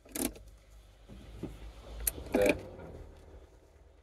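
Low steady road rumble inside a moving car's cabin. A short pitched sound comes near the start, then a click and a louder short pitched sound about two and a half seconds in.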